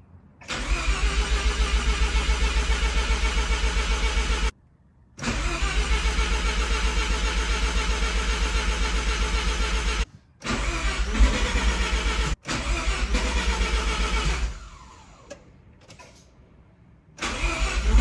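Mazda RX-7 FC's 13B rotary engine being cranked by its starter in about five long tries with short pauses between, pulsing evenly but not catching. The battery is running down.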